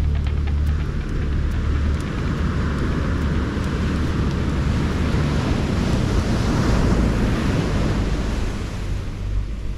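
Surf breaking and washing on a sandy beach, with wind buffeting the microphone as a steady low rumble.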